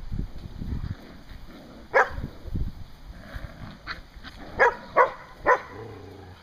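Standard poodles barking in play: one sharp bark about two seconds in, a fainter one, then three quick barks near the end.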